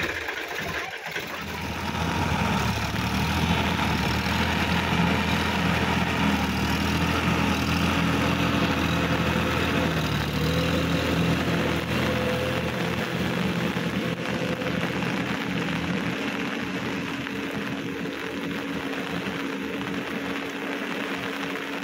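Sonalika DI-50 RX tractor's diesel engine running steadily under load while tilling a flooded paddy field. It grows somewhat fainter in the second half.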